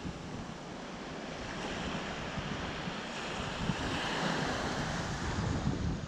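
Small waves breaking and washing up a sandy shore of the Black Sea: a steady hiss of surf that swells about halfway through. Wind buffets the microphone with a low rumble at the start and again near the end.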